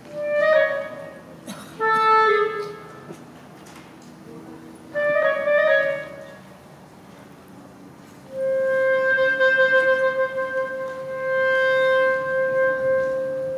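Solo clarinet playing live: three short phrases, then one long held note from about eight seconds in. It was recorded through a camera's microphone.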